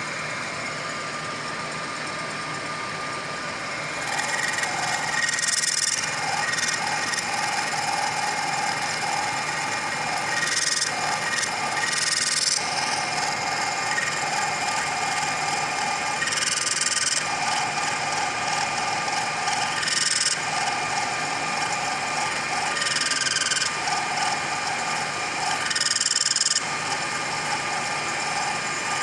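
Center lathe running at high speed while turning a mild steel rod: a steady motor and spindle hum, and from about four seconds in a cutting tone with hiss that comes and goes in stretches of a few seconds as the tool cuts the steel.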